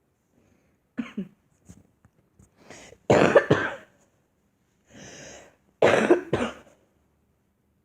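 A girl coughing: a small cough about a second in, then two loud double coughs about three seconds apart, with a softer hiss between them.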